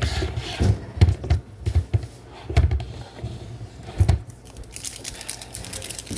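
Splenda sweetener packaging being torn open and crinkled by hand, with irregular dull knocks from handling.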